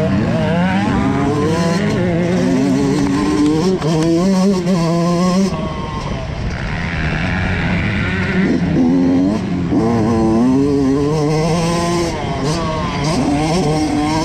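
Yamaha motocross bike's engine being ridden hard around a dirt track, its pitch repeatedly climbing under throttle and dropping at each gear change or lift-off, heard close up from a helmet-mounted microphone.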